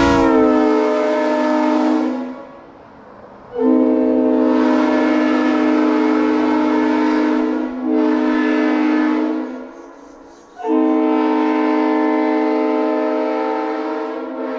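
Leslie Supertyfon RS3L three-chime locomotive air horn, bells 25, 31 and 44, sounding its chord in long blasts. One blast ends about two seconds in. A long blast with a brief break in it follows, and after a short pause another long blast begins.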